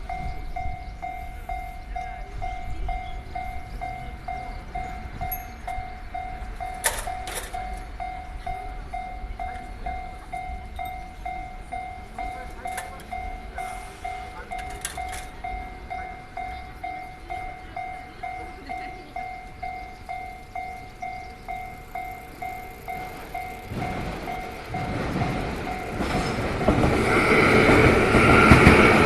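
Japanese level-crossing warning bell ringing steadily at about two strikes a second. About 24 s in the bell stops and a train's running noise rises to the end.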